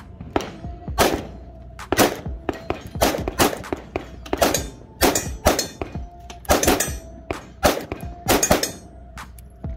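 Springfield Hellcat ultra-compact pistol firing a string of shots at steel plate targets, some in quick pairs, with the struck plates ringing a clear tone after hits. Other shots from the range are mixed in.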